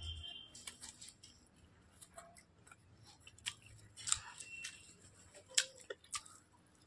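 Close-up mouth sounds of someone eating Maggi instant noodles with a fork: soft chewing and slurping broken by scattered sharp wet clicks and smacks, the loudest about four and five and a half seconds in.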